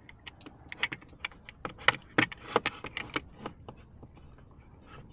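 Small flathead screwdriver prying and scraping at a stuck C-ring retaining clip on a Kwikset SmartKey lock cylinder: irregular sharp metallic clicks, dying down about three and a half seconds in and starting again near the end.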